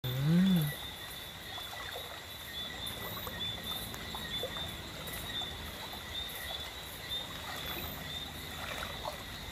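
Steady high-pitched chorus of night insects, with small trickles and splashes of river water as someone moves through it. A short hummed voice sound at the very start is the loudest moment.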